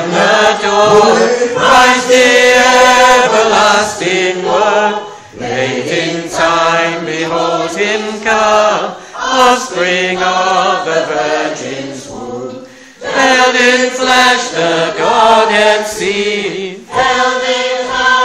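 A congregation singing together, many voices in sung phrases with short breaks between them.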